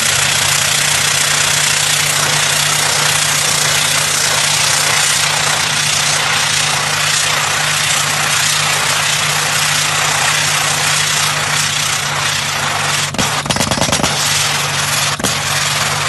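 Hydraulic drill rig running: a steady engine hum under a loud hiss. Near the end come a cluster of sharp knocks.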